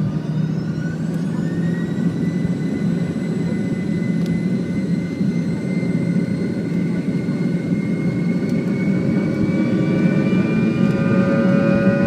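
Fokker 100's rear-mounted Rolls-Royce Tay turbofan engines spooling up to takeoff thrust, heard from inside the cabin: whining tones climb in pitch over the first two seconds, then hold and creep higher over a heavy rumble from the takeoff roll that grows slowly louder.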